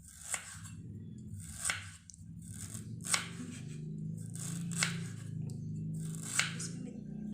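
A knife slicing fresh ginger root: about five sharp cuts, spaced roughly a second and a half apart, over quiet background music.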